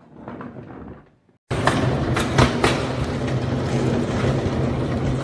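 Folding hand truck loaded with stacked plastic storage bins being rolled along a hallway floor. Its small wheels rumble steadily with irregular clacks, starting abruptly about a second and a half in.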